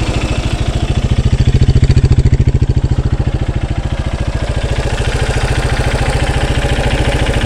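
Honda CRF230F air-cooled single-cylinder four-stroke engine idling with an even, fast beat, fitted with a new cam chain tensioner. It is a little louder for a couple of seconds about a second in, then steady.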